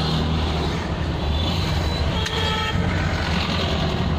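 Steady low hum of idling vehicle engines in stalled traffic, heard from inside a car, with a brief vehicle horn honk about two seconds in.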